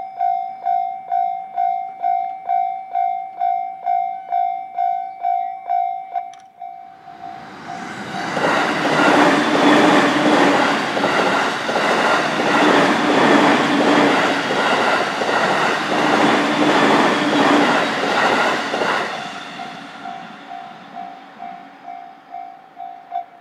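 A railway level-crossing warning bell rings about twice a second. An electric commuter train then passes through the crossing for about twelve seconds, its wheels clacking over the rail joints and covering the bell. Once the train has gone the bell can be heard again, and it stops near the end.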